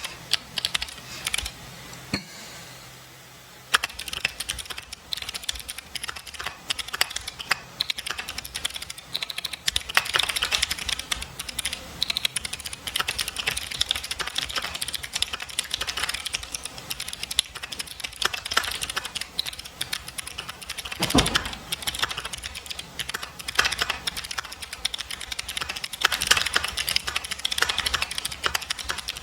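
Mechanical keyboard with jade switches being typed on in a fast, steady clickety-clack, with a brief pause a couple of seconds in and one heavier thump about two-thirds of the way through.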